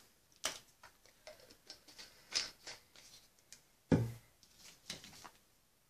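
Light clicks and taps of small objects being handled, with one louder thump about four seconds in.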